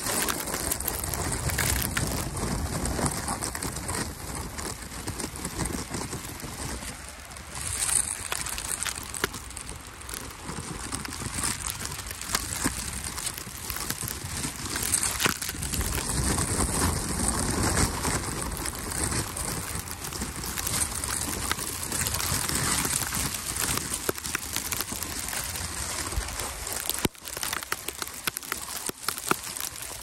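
Footsteps crunching through fresh snow, with wind buffeting the microphone: a steady rushing noise and low rumble, broken by many small irregular crackles.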